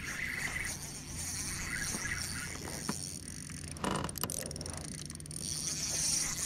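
Spinning reel's drag giving a short, rapid burst of clicks about four seconds in, as a hooked bass pulls line against the bent rod.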